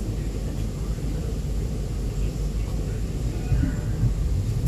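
Steady low rumble inside the passenger cabin of an E2-class tram, ending in a sharp click.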